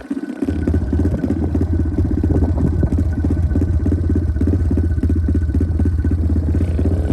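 A 110cc four-stroke single-cylinder pit bike engine. It comes in suddenly about half a second in, then runs steadily with a rapid, even pulse, neither revving up nor dying.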